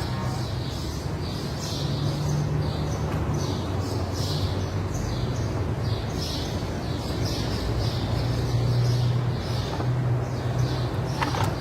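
A small bird chirping over and over, about twice a second, over a steady low machine hum, with a single sharp click near the end.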